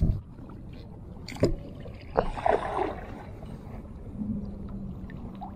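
Kayak on the water: water sloshing against the hull over a low rumble, with a sharp knock on the hull about one and a half seconds in and a splash a second later. A low steady hum comes in near the end.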